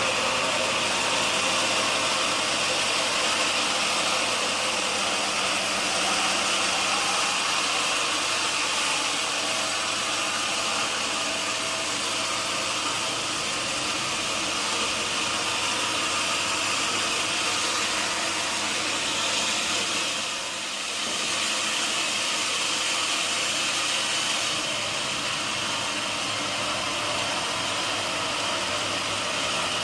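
Sawmill machinery running steadily, a continuous loud noise with a short dip about two-thirds of the way through.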